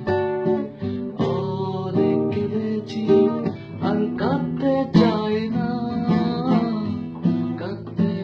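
Acoustic guitar strummed in chords while a man sings along.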